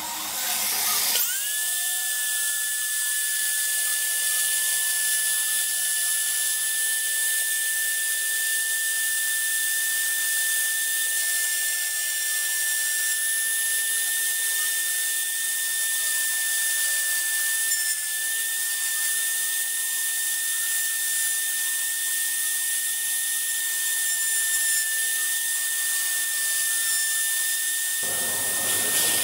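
Motor of a homemade woodworking lathe spinning up about a second in, then running at a steady speed with a high-pitched whine.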